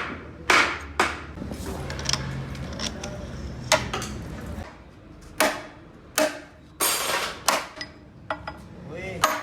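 Irregular sharp metal strikes and clanks, about eight in all, from hammering and handling steel parts of a truck transmission. A low steady hum runs underneath and stops about halfway through.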